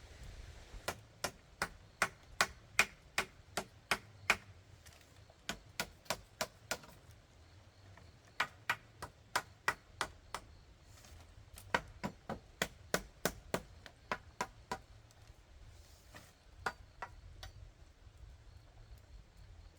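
Rhythmic sharp blows of a hand tool striking bamboo, in runs of several strikes about three a second with short pauses between runs.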